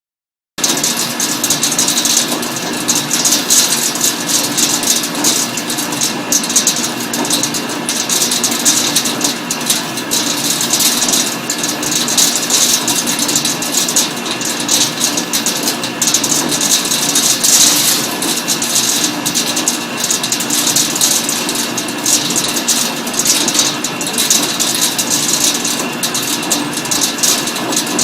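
Bacu (Titan) SC-22 CNC vertical boring mill roughing metal: a steady machine hum with several fixed tones under a dense, flickering hiss of the cut. It cuts in abruptly about half a second in and stays steady.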